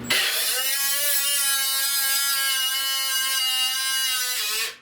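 Handheld electric metal-cutting tool whining at high speed as it cuts sheet steel. It starts abruptly, holds a steady pitch, then winds down and stops just before the end.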